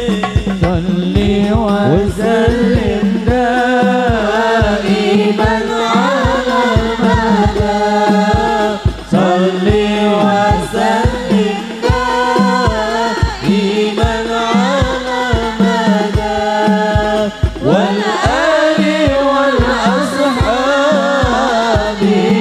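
Hadroh ensemble performing a sholawat: voices singing a long, ornamented Arabic devotional melody into microphones over steady hand-drum beats at about two to three strikes a second.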